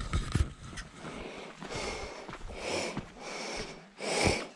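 A person breathing hard through a half-face gas respirator from the exertion of a steep climb, about three loud hissing breaths. There are a few low knocks near the start.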